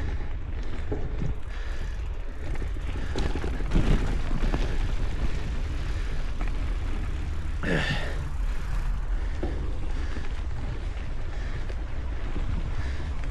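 Mountain bike riding over a dirt trail: steady wind buffeting the microphone and rumble from the tyres and bike. About eight seconds in, a single loud short sound slides down in pitch.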